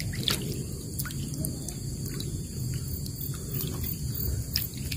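Small splashes and drips of river water as a wader handles a gill net and dips a mesh fish bag, scattered through a steady low rumble.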